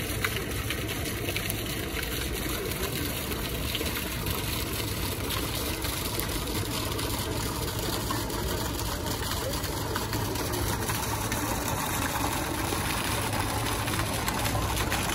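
Steady splashing of a fountain's water jet, shot from a topiary dinosaur's mouth, landing in a pool, over the murmur of passers-by. It grows a little louder near the end.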